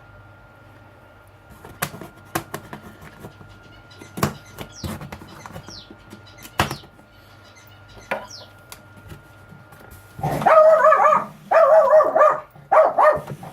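A pet dog barking and yelping loudly in quick repeated bursts from about ten seconds in, set off by seeing another dog. Before that there are only scattered light clicks and knocks.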